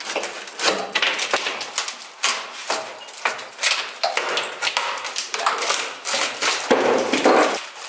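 Irregular knocks and clatter, about two a second, from demolition work on a wooden door frame.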